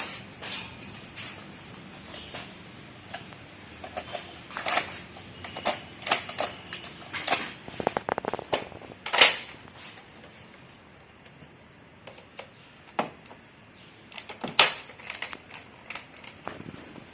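Plastic parts of a Nerf blaster clicking and knocking as it is put back together: scattered sharp clicks and taps, with a quick rattle about halfway through and two louder knocks, one a little after that and one near the end.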